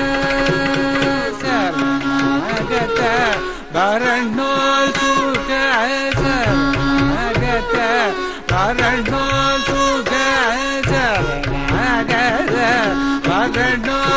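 Carnatic classical music in raga Reethigowla: a male voice and violin trace ornamented, gliding melodic lines over a tambura drone, with mridangam and ghatam strokes that grow busier about six seconds in.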